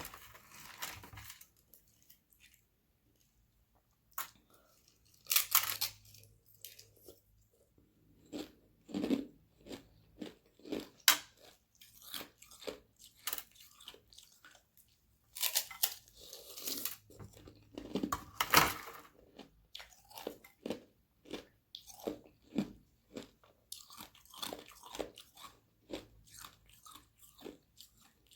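Frozen carbonated-water ice sheets being bitten and chewed close to the microphone: sharp cracking bites with short pauses between, then a steady run of crunching chews near the end.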